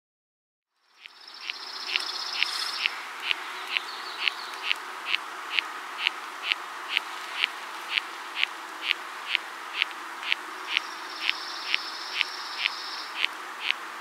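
Larva of a wood-boring beetle, presumably the white-spotted sawyer (Monochamus scutellatus), chewing inside a black spruce trunk: sharp clicks a little over two a second over a steady hiss, fading in about a second in. A high trill sounds twice behind it, near the start and near the end.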